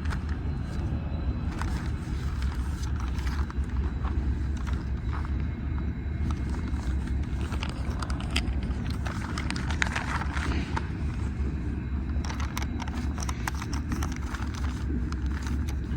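A steady low rumble with scattered short clicks and knocks, more of them in the second half.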